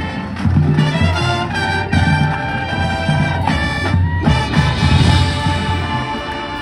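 High school marching band playing, the brass section carrying sustained chords over a pulsing low beat.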